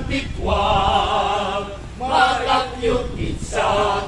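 A parish choir singing together in sustained phrases, with a short break between phrases about two seconds in.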